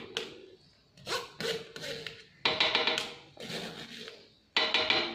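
A metal spoon knocking and scraping against a stainless mesh strainer to push thick yogurt into a blender jug: about four sharp knocks, each ringing briefly.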